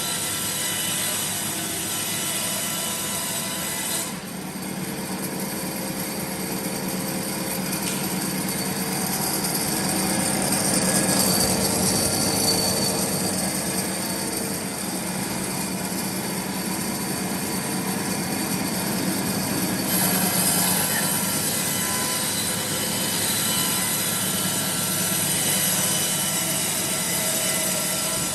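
Sawmill machinery running steadily while a saw cuts wood. The high-pitched hiss drops away about four seconds in and returns about twenty seconds in.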